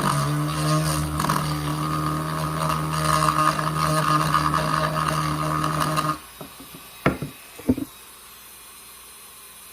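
An electric power tool runs with a steady hum and stops abruptly about six seconds in, followed by two sharp knocks on wood.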